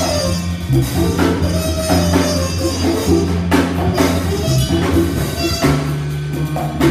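A live Latin jazz combo playing: grand piano, upright bass walking through low sustained notes, and a drum kit keeping a steady beat with regular cymbal and drum strikes.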